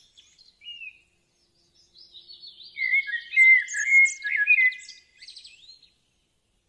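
Bali myna calling: a short note, then about four seconds of mixed whistles and harsh chattering notes starting about two seconds in.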